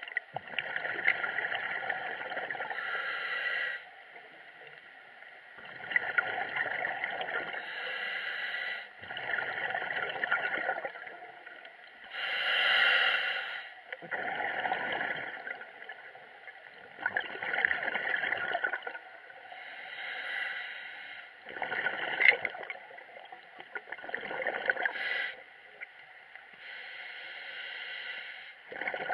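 Scuba diver breathing underwater through a regulator: a noisy rush of breath and gurgling bubbles about every three seconds, with quieter pauses between breaths.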